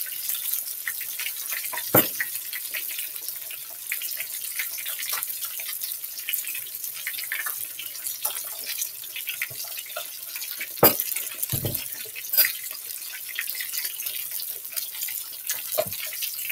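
Breaded whole tilapia deep-frying in hot oil in an electric skillet: a steady crackling sizzle. A few sharp knocks break in, the loudest about eleven seconds in.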